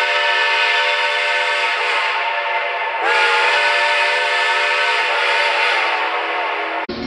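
Steam whistle blowing one long, loud chord of several tones. About three seconds in it sags and is blown again harder, its pitch sliding up briefly, then it cuts off abruptly near the end.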